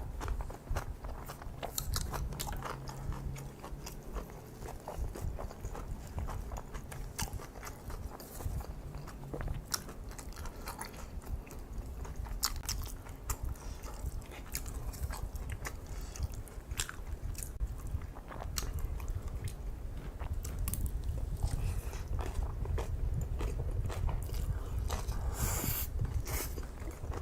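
Close-miked chewing of kimchi fried rice: a continuous run of wet mouth clicks and soft crunches over a low rumble.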